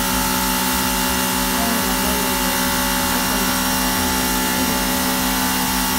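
Electric pressure washer running with a steady hum from its motor and pump as it sprays water onto a concrete floor.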